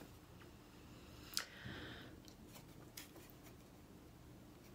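Faint handling of a plastic blister pack on a card backing: a few sparse, sharp clicks and a soft rustle over quiet room tone.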